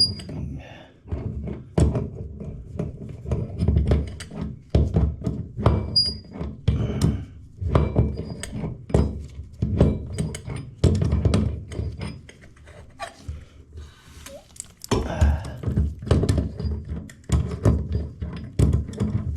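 Irregular knocks, clicks and thunks of hands and a wrench working threaded fittings on the plumbing under a sink.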